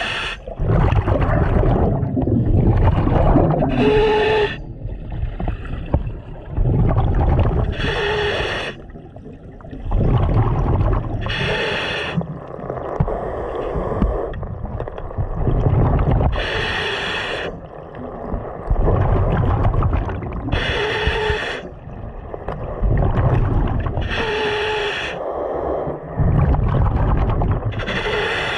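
A scuba diver breathing through a regulator underwater in a steady cycle about every four seconds: a short hiss on each inhale, sometimes with a faint tone, then the low rumbling gurgle of exhaled bubbles.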